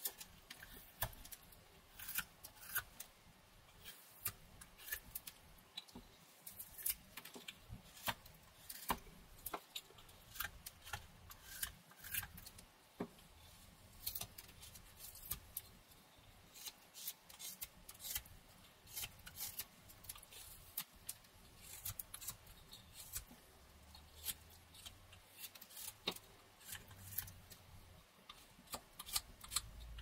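Rough Rider pocket knife whittling a pine stick: a string of short, crisp slicing cuts as shavings come off, one to several a second, with irregular pauses.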